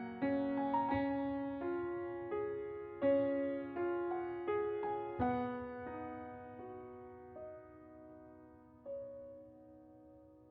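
Background piano music: a slow melody of single struck notes that thins out and fades over the last few seconds.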